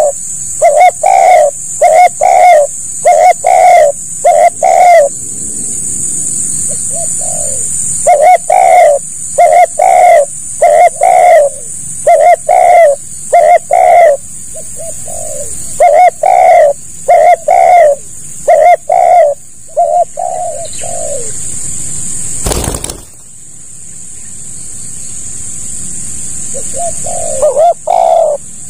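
Spotted doves cooing: loud coos repeated in runs of four to six about a second apart, with fainter coos in the pauses between runs. A steady high hiss lies under the calls, and a single sharp knock comes about 23 seconds in.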